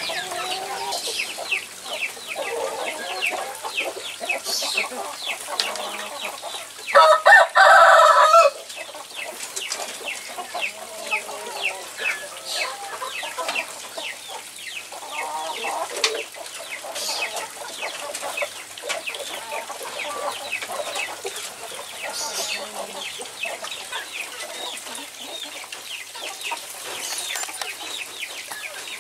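Free-range Indonesian village chickens (ayam kampung) clucking in a run of short calls. A rooster crows once about seven seconds in, the loudest sound here.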